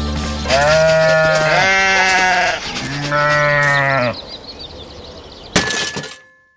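Sheep bleating twice: one long bleat lasting about two seconds, then a shorter one. Near the end comes a sharp click followed by a faint ringing tone that fades out.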